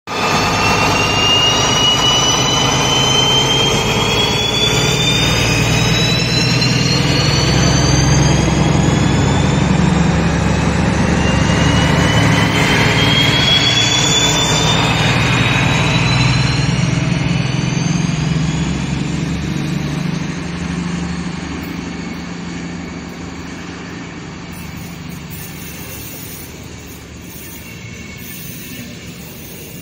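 Two DB class 218 diesel-hydraulic locomotives with MTU 12V 956 TB 11 engines pulling away under power with an Intercity train. A deep engine rumble carries high whines that rise in pitch as they accelerate past. After about twenty seconds the engine sound fades and the passing coaches roll by more quietly.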